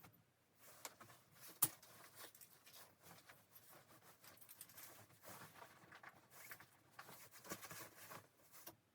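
Faint, scattered rustling and light clicks, with one sharper click about one and a half seconds in.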